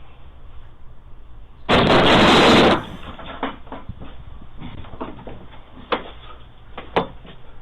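A Ring doorbell camera being struck: one loud, harsh burst of noise about a second long, followed by several short sharp knocks.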